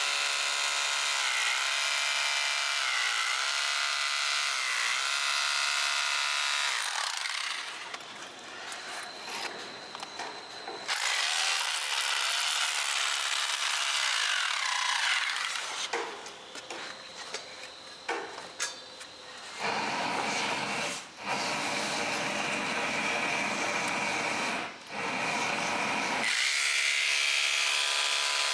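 Small electric motor running with a whine that dips in pitch several times under load, broken by stretches of coarse grinding noise, then steady again near the end.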